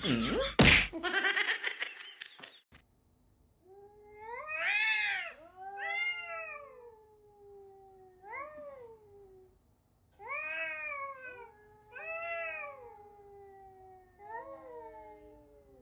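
A cat meowing over and over, about eight long drawn-out meows that each rise and fall in pitch. Before them a sharp knock, about half a second in, is the loudest sound.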